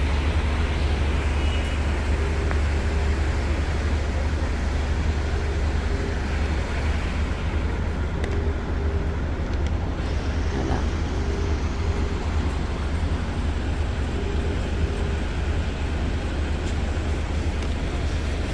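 Steady low rumble of motor traffic with even road noise. Faint tones come and go over it.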